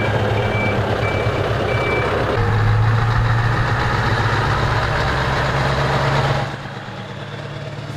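Scania heavy truck's diesel engine running at low speed while a reverse alarm beeps just under twice a second, the beeping stopping about two seconds in. The engine note then grows stronger, and its level drops about six and a half seconds in.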